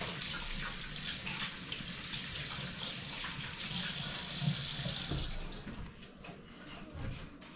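Kitchen tap running into a sink while hands are washed under it; the water shuts off a little over five seconds in, followed by a few light knocks.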